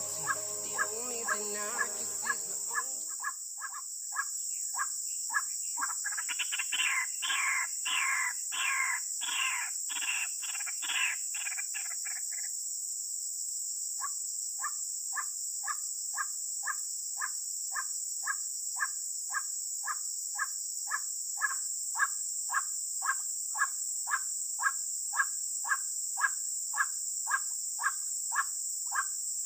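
White-breasted waterhen (ruak-ruak) calls played back as a lure: a short call note repeated about twice a second, louder and fuller for several seconds in the middle, with a brief break before it carries on. Over it runs the steady high buzz of insects, and fading music for the first few seconds.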